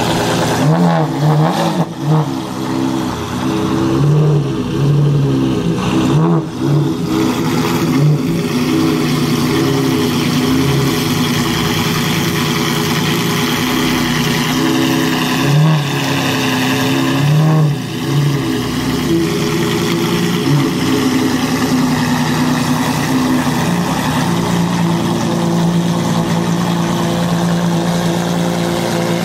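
Maserati MC12 Corsa's 6.0-litre V12 running with repeated throttle blips, its pitch rising and falling with each one. Over the second half the revs hold steadier.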